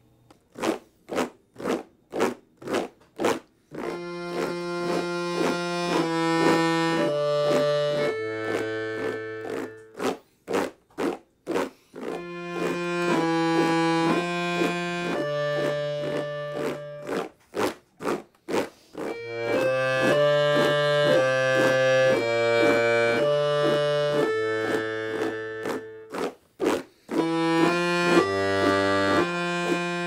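Piano accordion playing phrases of held chords that change every second or so, in turns with runs of sharp percussive knocks, about two a second, that open the passage and return three times between the phrases.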